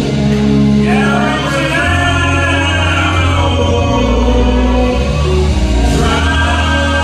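Live gospel song: male lead voices singing through microphones with a choir, over a band with sustained bass notes. A new sung phrase comes in about a second in and another near the end.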